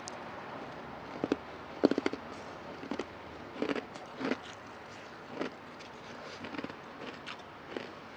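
Ice being bitten and chewed in the mouth: irregular short crunches and crackles, a second or so apart, with the loudest near two seconds in.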